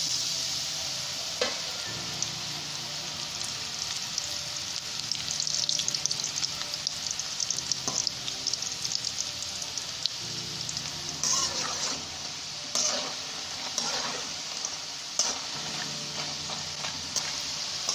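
Pieces of rice-flour dough deep-frying in hot oil in a metal wok: a steady sizzle. A spatula stirring them gives short scrapes and knocks against the pan every second or two.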